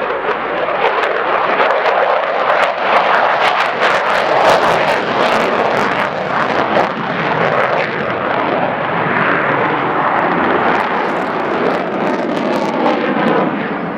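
Lockheed Martin F-35A Lightning II fighter jet's engine heard loud in flight, with a ragged crackle for a few seconds near the start.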